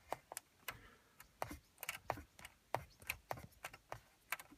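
Fingers handling the plastic front and hard-drive bay of a car's MMCS head unit: a quick, irregular run of small clicks and taps.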